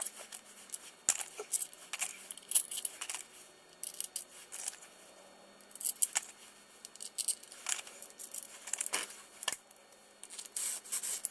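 Irregular metal clicks, clinks and light knocks as the aluminium clutch-side case cover of a small ATV engine is fitted back on and its bolts are started.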